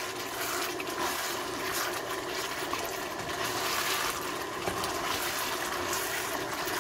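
Chicken and vegetable stir fry sizzling steadily in its thickened sauce in a hot wok while it is stirred with a silicone spatula.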